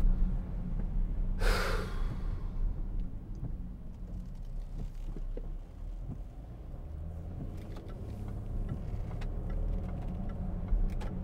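In-cabin drone of a Range Rover's 3.0 TDV6 turbodiesel and its tyres on a wet road, steady and low. About a second and a half in there is one short breathy rush, with a few faint clicks later on.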